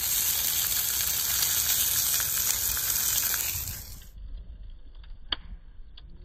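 Rack of ribs sizzling on a Blackstone griddle, a dense steady hiss that cuts off about four seconds in. Then a quieter campfire of burning logs, with one sharp pop and a few fainter crackles.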